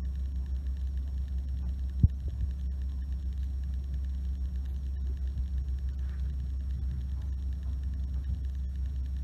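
A steady low rumble, with a single sharp knock about two seconds in.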